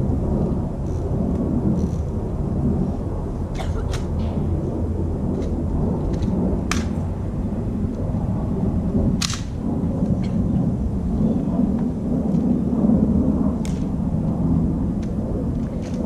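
Loud low rumbling noise that carries on throughout, with half a dozen sharp clicks spaced a few seconds apart.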